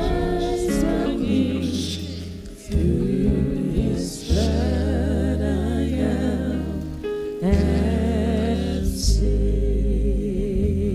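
Live gospel worship music: a voice singing with a wavering vibrato over a band, with long held low bass notes that change every few seconds.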